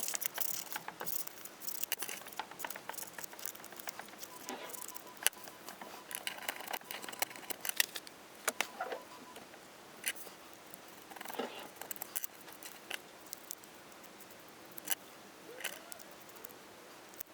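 Scissors cutting out a letter N from fabric: irregular snips and small clicks with some rustling of the material as it is handled.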